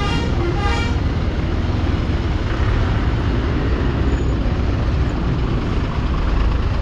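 Motorcycle engine running with road and wind noise as the bike rides slowly over a rough dirt road. A vehicle horn sounds briefly near the start.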